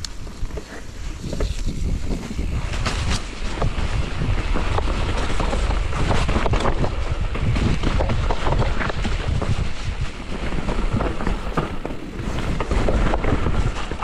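Wind rushing over the microphone of a mountain biker's camera while riding, with a rumble that rises and falls and frequent short knocks and rattles from the bike running over rough trail.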